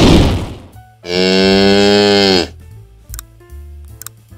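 A short whooshing burst, then a cow mooing once: one long, steady call lasting about a second and a half.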